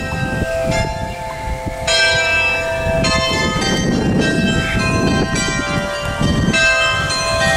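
Church bells ringing, strokes following one another about once a second with long overlapping tones, over low street noise.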